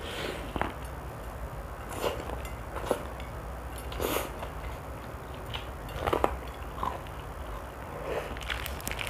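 Crunching bites and chewing of crispy, crumb-coated Sabana fried chicken, heard close up: a sharp crunch every second or two, with two quick ones about six seconds in.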